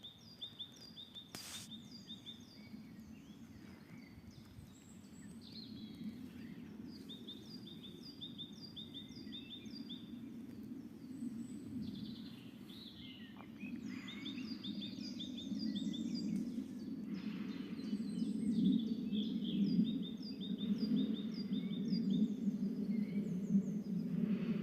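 Several songbirds singing, with short rapid chirp series repeated again and again, over a low steady rumble that grows louder toward the end.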